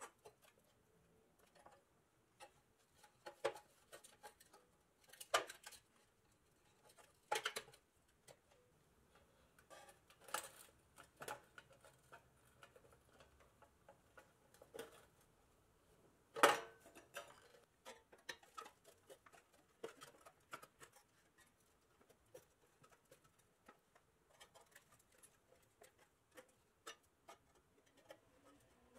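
Flathead screwdriver prying and scraping at the tabs of a rusted pressed-steel Tonka toy truck cab, making scattered metal clicks and short scrapes, the sharpest about sixteen seconds in.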